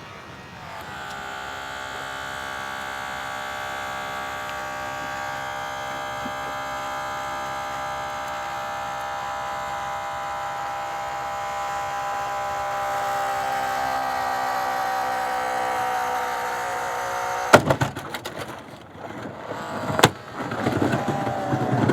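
Holmatro hydraulic rescue cutter's motor whining steadily as its blades close on a flat steel door hinge, the pitch sagging slightly as the load builds. About 17 seconds in the hinge steel gives with a burst of loud cracks, and another sharp crack follows about two and a half seconds later.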